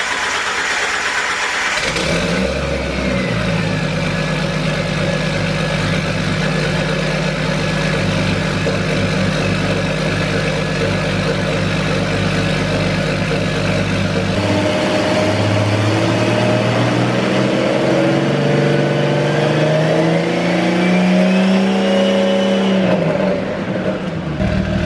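Turbocharged Jeep Wrangler engine on its first start: it turns over, catches about two seconds in and settles into a steady idle. Its pitch shifts about midway, then the revs rise and fall near the end with a rising high whine.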